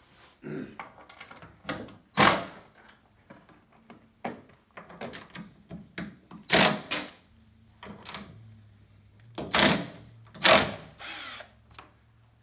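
Cordless drill running in several short bursts as it drives and tightens fasteners under the wooden rail of a pool table.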